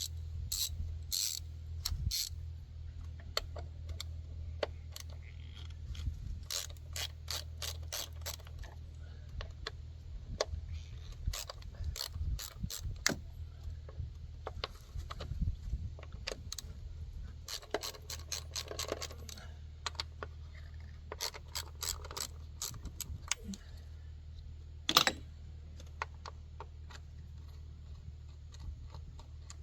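Socket ratchet with a 10 mm deep socket clicking in several quick runs, a few seconds apart, as bolts are worked loose. One louder sharp knock comes near the end.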